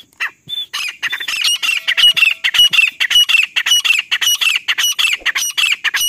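Female grey francolin calling: a few separate high notes, then from about a second in a fast, loud run of repeated notes, about four or five a second, that stops near the end.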